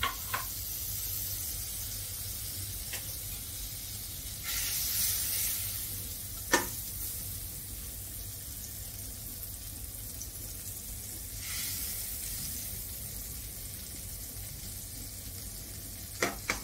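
Butter melting and sizzling in a hot stainless steel pan, a steady hiss that swells louder twice. A metal spatula clicks against the pan a few times, loudest about six and a half seconds in and twice near the end.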